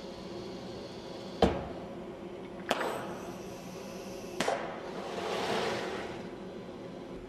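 Machinery working: three sharp mechanical clacks about a second apart, the first the loudest, then a hiss that swells and fades over nearly two seconds, over a steady hum.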